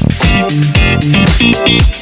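Upbeat background music with a steady dance beat, bass line and plucked guitar.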